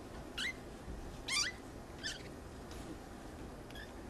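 Siamese kittens giving short, high-pitched squeaking mews while play-wrestling: three clear calls in the first two seconds, then fainter ones near the end.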